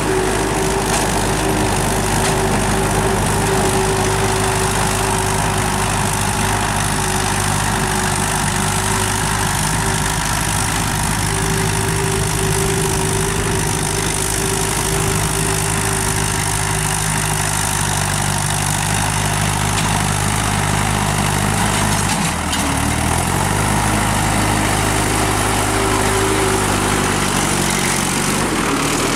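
Mahindra Arjun Novo 605 DI tractor's four-cylinder diesel engine running steadily under load as it pulls a tine cultivator through tilled soil. About three-quarters of the way through, the engine note drops, then climbs back up over several seconds.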